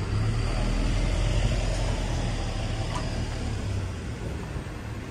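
Low engine rumble of a passing road vehicle, loudest in the first two seconds and easing off after about four.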